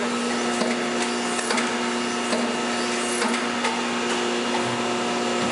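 Van Dorn 400-ton hydraulic plastic injection molder running: a steady hum and whine with several held pitches from its hydraulic power unit, and a few sharp clicks as the machine cycles.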